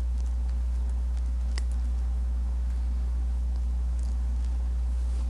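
Steady low hum with no speech, and a faint tick about one and a half seconds in.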